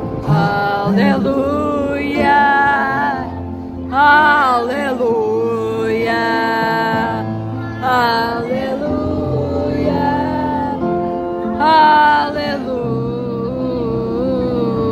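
Live concert music heard from among the audience: a singer holding long, wavering melodic notes over steady band accompaniment, with louder sung phrases twice.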